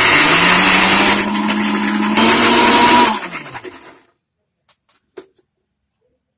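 Electric mixer grinder running at full speed, grinding boiled raw banana peels with garlic, chillies and a little water into a wet chutney paste. The motor runs loud and steady for about three seconds, its sound changing about a second in, then winds down with a falling hum once switched off, followed by a few light clicks of the jar being handled.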